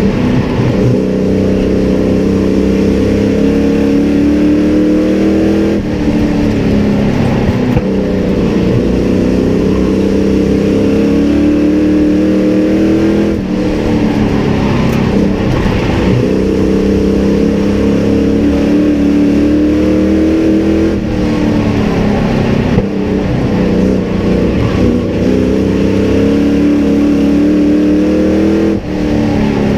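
Race truck's engine heard from inside the cab, pulling up through the revs along each straight and dropping off sharply as the driver lifts for the corners, a cycle about every seven to eight seconds.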